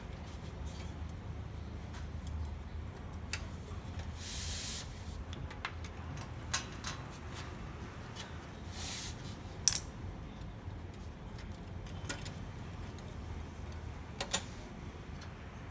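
Plastic and sheet-metal parts of a laser printer being handled while it is taken apart: scattered clicks and taps, with two short scraping rubs, about four seconds in and about nine seconds in, over a steady low hum.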